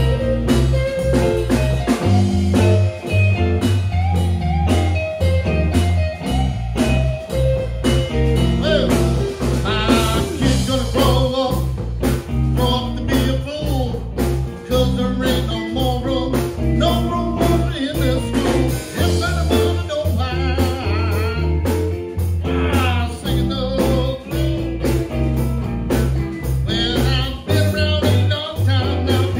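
Blues band playing live: two electric guitars and an electric bass over a steady beat, with a man singing in stretches.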